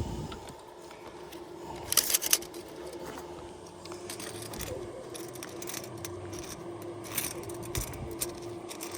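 Tape measure being pulled out and handled against asphalt shingles: a cluster of clicks and rattles about two seconds in, then scattered light clicks over a faint steady hum.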